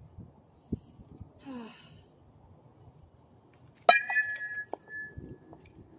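A bat striking a tossed softball: one sharp crack about four seconds in, followed by a metallic ring that fades over about a second. Shortly before, a brief breathy exhalation from the hitter.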